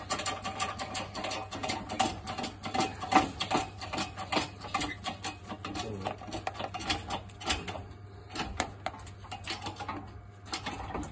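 Handheld heat gun running with a steady whine, warming the engine block's cylinder jacket to free a stuck piston, with rapid irregular clicking and tapping over it. The whine fades about eight seconds in and comes back near the end.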